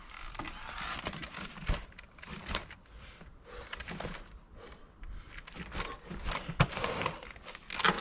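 Mountain bike tyres crunching and rustling through dry fallen leaves as the bike is hopped and levered up a steep slope. There are repeated knocks and rattles from the bike, sharpest near the end.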